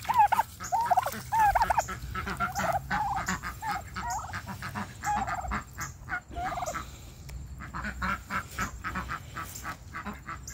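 Domestic poultry calling with short pitched yelps through the first six seconds or so, then a quick run of sharp taps and clicks, about four a second, as turkeys dip their beaks into a plastic bucket of water to drink.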